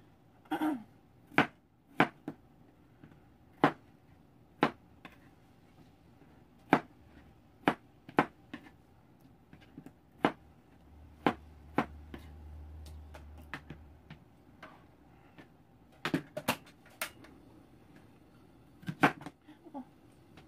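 Kitchen knife chopping potatoes on a cutting board: sharp, separate strikes at an irregular pace, roughly one a second, with a few quick double strikes.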